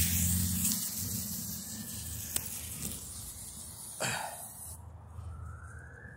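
Small smoke firework burning on pavement: its fuse hisses steadily with a sharp pop about two and a half seconds in, then gives a louder rush of hiss about four seconds in as it starts pouring smoke. A siren starts to rise near the end.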